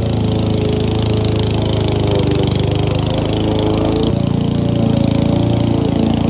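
Gas walk-behind lawn mower's engine running steadily at full throttle while cutting tall, dry, overgrown grass and weeds.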